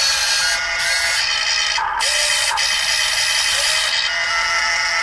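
RC model excavator's electric motors and gearboxes whirring as it digs and swings its bucket, briefly cutting out and starting again a few times.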